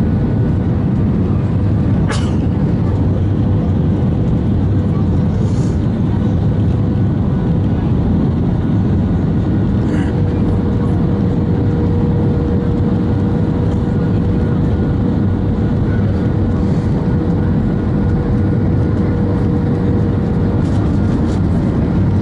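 Steady cabin noise of an Airbus A320 descending on approach: a low, even rush of engines and airflow with a thin steady tone running through it, and a couple of faint clicks.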